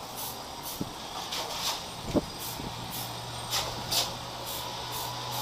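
Aerosol can of chrome spray paint giving short, quick hissing spurts about twice a second, dabbing paint onto a sanded helmet's scratches. A low steady hum joins about halfway through.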